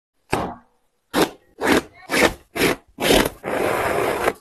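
Shoelace being pulled out through the eyelets of a Puma LaMelo Ball MB.02 basketball sneaker: a run of six short rubbing swishes about half a second apart, then one longer continuous rub near the end.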